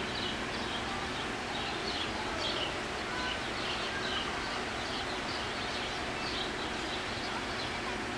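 Steady rushing of an exhibit waterfall, with small birds chirping over it in short, quick, repeated notes.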